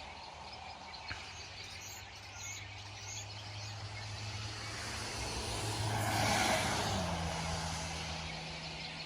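A motor vehicle's low engine hum grows louder, passes about six to seven seconds in and drops in pitch as it goes by. A few short bird chirps come about two to three seconds in.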